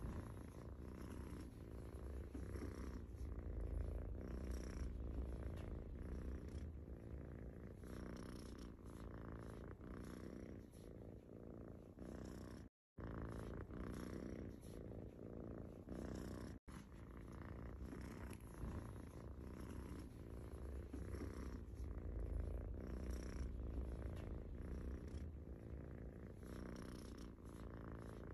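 A sleeping domestic cat purring. The low rumble swells and fades with each breath. The sound cuts out briefly twice near the middle.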